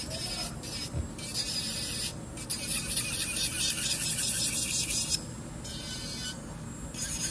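Electric nail drill grinding down acrylic nails: a high grinding that starts and stops in stretches of one to a few seconds as the bit is put to the nail and lifted off.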